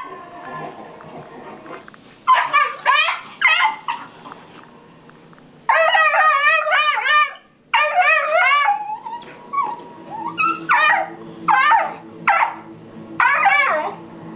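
Treeing Walker Coonhound puppies yelping and yowling as they play-fight, in several loud bursts of calls whose pitch wavers up and down.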